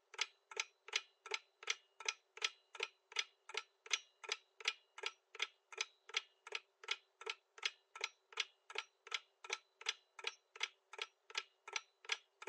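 Quiz countdown timer sound effect: a steady clock-like ticking, a little under three ticks a second, marking the time left to answer.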